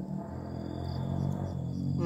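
Motorcycle engine running on a nearby road, a steady low hum that grows gradually louder.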